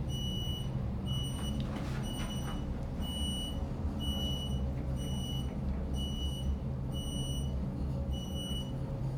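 Westinghouse traction elevator car travelling down, with a steady low hum of the ride. Over it, a short high electronic beep repeats about once a second.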